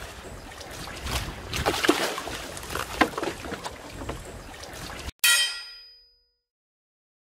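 Wind and sea-water noise on a boat with a few sharp knocks, then a little after five seconds in a single hammer blow on an anvil rings out and dies away within about a second.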